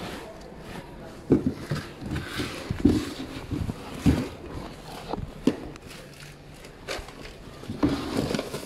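Handling noise from a phone's microphone rubbing and bumping against clothing: irregular muffled thumps about every second or so, over fabric rustling.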